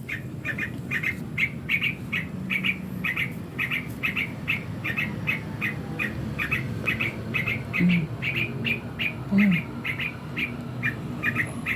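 Small bird chirping over and over, short chirps at about three a second, a male calling during what the owner takes for courtship.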